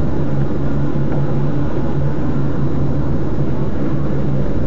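Steady in-cabin drone of a moving car, with a low engine hum and tyre noise on a wet road.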